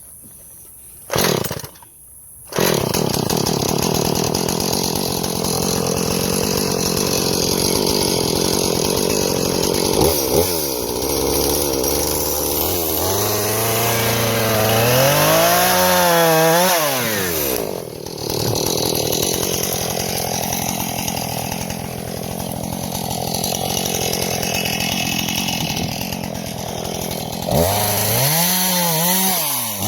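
Husqvarna 450 two-stroke chainsaw starting up about two seconds in and running at high revs while cutting mesquite. Its engine speed sags and climbs back several times in the middle and again near the end.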